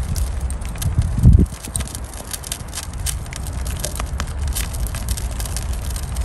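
Paper charcoal sack and lumpwood charcoal burning in a chiminea, crackling with many sharp snaps over a steady low rumble. A louder low buffet comes about a second in.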